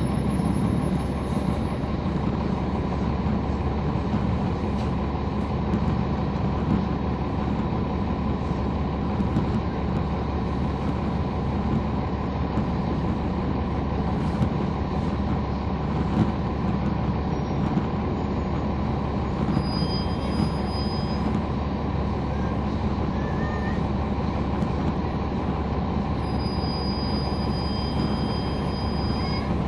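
Inside a 2011 NABI 416.15 (40-SFW) transit bus, heard from the rear seats: its Cummins ISL9 diesel engine running at a steady pace, with a steady whistle riding over the low drone.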